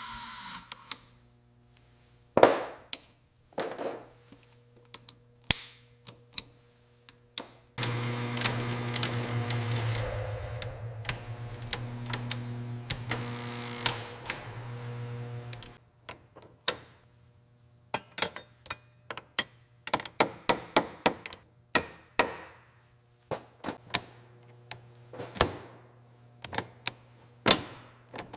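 Workshop work sounds: scattered knocks and taps from tools on metal or wood, over a faint steady hum. A louder continuous machine sound runs for about eight seconds in the middle, then rapid clicking and tapping follows.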